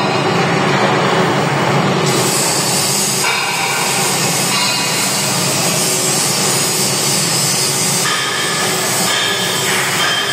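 Metal lathe running while a tool bit faces a metal ring held in the chuck: a steady machining noise, with a high hiss from the cut that grows stronger about two seconds in.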